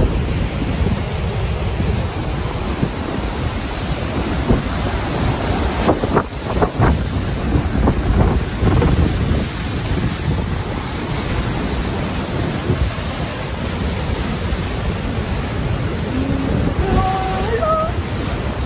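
Large waterfall in heavy flow, a steady loud rush of churning water, with wind buffeting the microphone.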